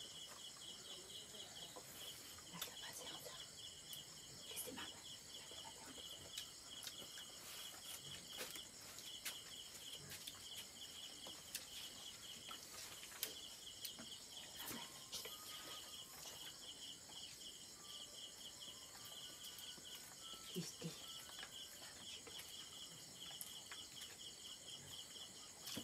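Faint, steady insect chirping in rapid even pulses of about four a second, with a few soft clicks.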